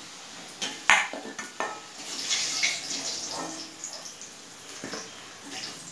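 Metal slotted spoon clinking and scraping against a metal kadai and a metal bowl as fried potatoes are lifted out of hot oil, a few sharp knocks over a light sizzle of the oil.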